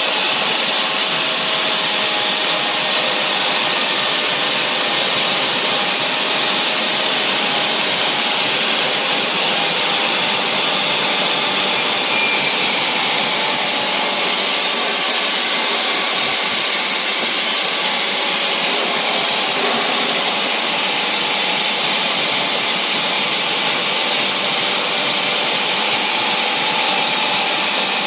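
On-site portable machining rig running steadily while surfacing a large foundation ring: an even, unchanging machine noise with a faint steady hum.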